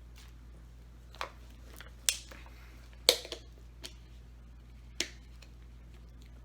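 A few sharp clicks and crinkles of small objects being handled, with the loudest two a little after two and three seconds in.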